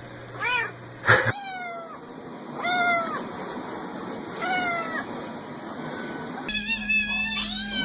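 Kittens meowing: single high meows that fall in pitch, spaced a second or two apart. About two-thirds of the way through the sound changes to another recording with a low hum, where several kittens mew close together.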